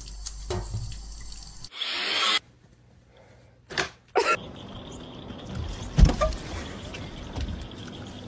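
A kitchen tap running into a stainless-steel sink, its stream louder for a moment about two seconds in. After a short quiet gap, a steady outdoor background noise with a thump near the middle.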